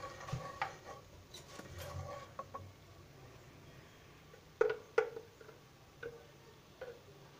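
Wooden spatula knocking and scraping against a metal pan holding a little heating oil: scattered light knocks, the two loudest close together a little past halfway.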